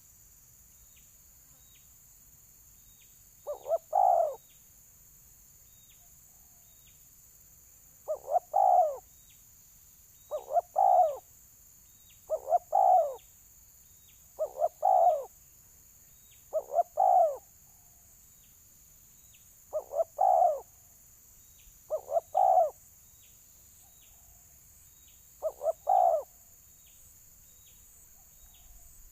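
Spotted dove (balam) cooing: short phrases of two or three deep coos, repeated about every two seconds after a pause near the start. These are its territorial fighting calls, given in answer to a decoy bird.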